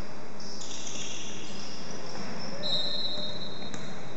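Indoor basketball game: a ball bouncing on the wooden court and sneakers squeaking, with a high squeak about two-thirds in, over the echoing background noise of a large sports hall.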